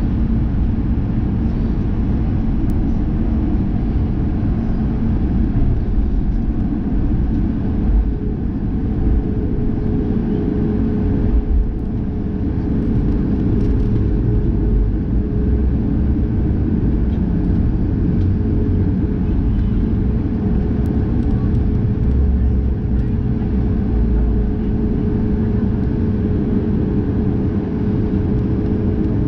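Boeing 737 MAX 8's CFM LEAP-1B turbofan engines running at taxi power, heard from inside the cabin as a steady low rumble with the airliner rolling along the taxiway. A steady hum joins in about nine seconds in.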